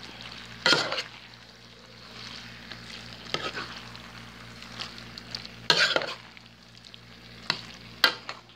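A spoon stirring saucy rotini pasta with pork, onions and shredded cheese in a pan: a soft, steady wet churning with about four sharper scrapes of the spoon against the pan, the loudest near six seconds in.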